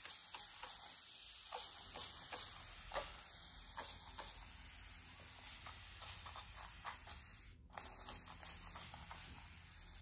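Hand-held water mister spraying a fine continuous mist over a ficus bonsai's leaves, a steady hiss that breaks off briefly near the eight-second mark and then resumes.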